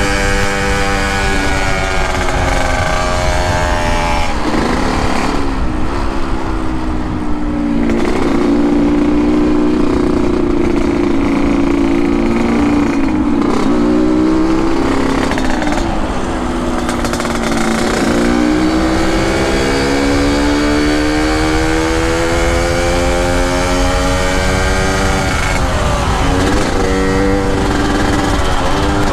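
Yamaha RX-King two-stroke motorcycle engine running on the move, its pitch sinking and then climbing again several times as the bike slows and picks up speed.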